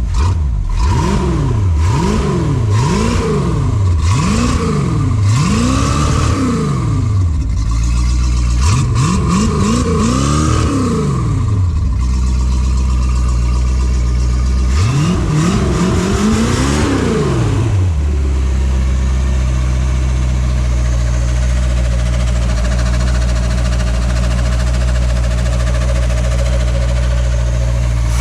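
Boat's inboard engine running on its first start after an upgrade to a mechanical fuel pump and new exhaust manifolds and risers, fed with cooling water by hose. The throttle is blipped in about five quick revs, then two longer revs, before it settles into a steady idle.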